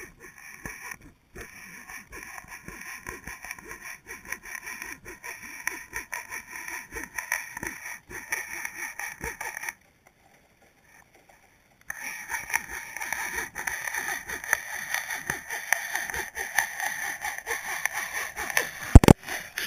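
Muffled underwater crackling and rubbing picked up by a GoPro Hero 2 in its waterproof housing as it is hauled up on braided line. The sound cuts out for about two seconds midway, and a couple of sharp knocks come near the end.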